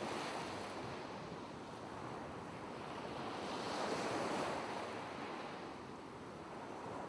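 Rushing surf of breaking waves, an even hiss-like wash that swells about four seconds in and then eases off.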